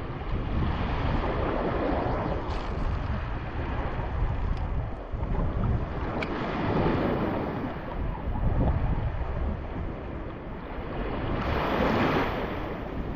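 Small waves washing onto a sandy shore in surges, one breaking close by near the end, with wind rumbling on the microphone.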